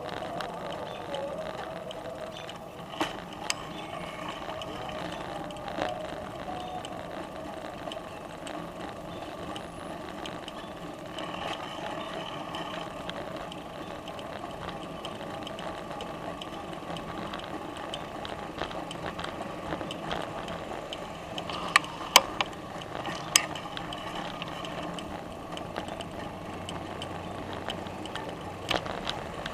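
Bicycle being ridden over pavement: steady whirring and ticking of the chain and freewheel, with a few sharp rattling knocks from bumps, the loudest a cluster about three quarters of the way through.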